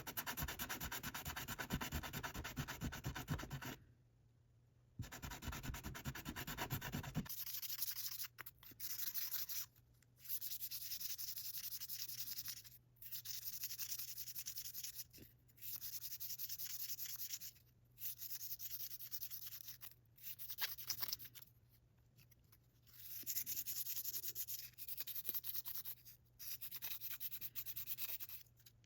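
Abrasive rubbing on a rusty metal tool as it is polished by hand, in spells of a few seconds with short pauses between. The first two spells are coarse and full; from about seven seconds in the rubbing turns to a thinner, higher hiss.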